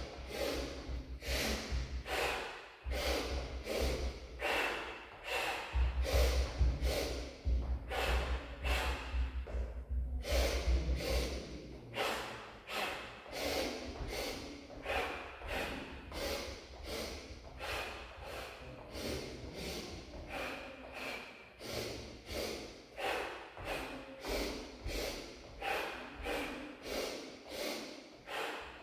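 A person doing rhythmic exercise breathing: quick, forceful sniffs in through the nose, two in a row, each followed by a blown exhale through pursed lips, repeated evenly over and over. A low rumble runs underneath for several seconds in the first half.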